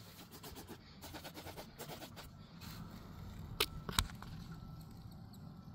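Handheld trigger spray bottle squirting aluminum brightener, two short sharp sprays about three and a half and four seconds in, over a quiet background with a few faint light clicks.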